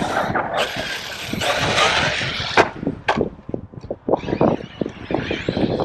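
Arrma Kraton 6S RC truck driving over rough ground: a rush of motor and tyre noise, two sharp knocks about two and a half and three seconds in, then short choppy bursts of throttle.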